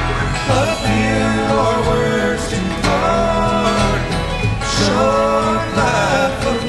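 Country-bluegrass style music with plucked guitar and a singing voice.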